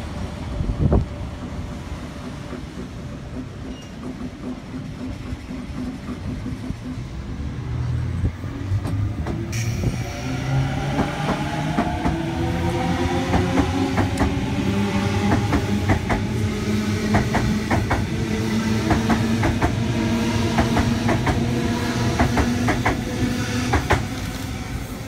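Sydney Trains Waratah electric train pulling away close by. Its traction motors whine in several tones that rise steadily in pitch as it accelerates, and its wheels click over rail joints in quick uneven groups. A low rumble comes before the whine begins, about a third of the way in.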